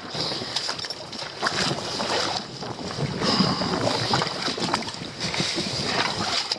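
Wind gusting over the microphone with sea water sloshing and washing among shoreline rocks, a continuous uneven rushing noise.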